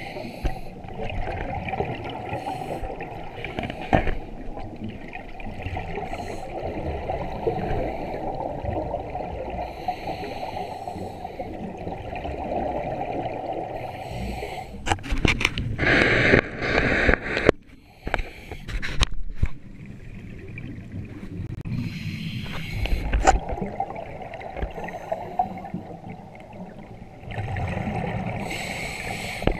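Scuba divers breathing underwater through regulators: a steady low water noise, with a few louder rushes of exhaled bubbles.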